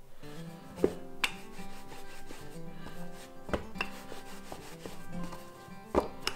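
Wooden rolling pin rolling back and forth over floured noodle dough on a wooden board, a steady rub broken by a few sharp wooden knocks as the pin comes down on the board.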